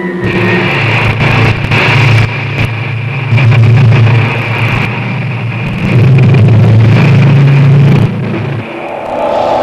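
Rocket engine sound effect of a launch: a loud, noisy rush over a deep low rumble that swells in surges and drops away about eight and a half seconds in.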